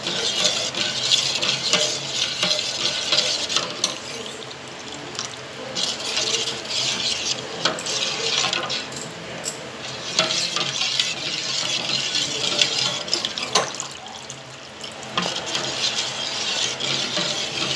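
A steel ladle stirring thin buttermilk and pearl millet flour in a steel pot, scraping the bottom and swishing the liquid in stretches of a few seconds, with a few clinks of metal on metal. The mix is kept moving as it heats so the millet flour does not form lumps.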